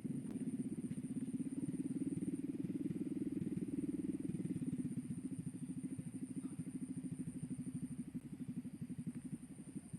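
A small engine running steadily at idle, a fast even pulsing that eases slightly in level about halfway through.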